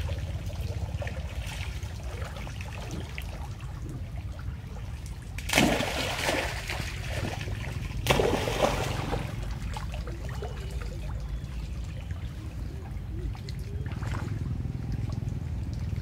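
Long-tailed macaques swimming and splashing in floodwater: two loud splashes, about five and a half and eight seconds in, over water trickling and lapping and a steady low rumble.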